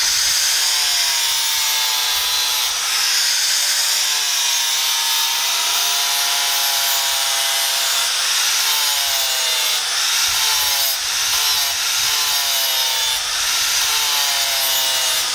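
Electric angle grinder with an abrasive disc grinding along a steel sword blade, a steady loud hiss of abrasion with the motor's whine dipping and rising again and again as the disc is pressed into the steel.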